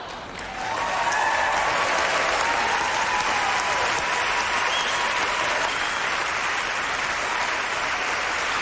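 Audience applauding steadily, with a few held cheering voices above the clapping in the first half.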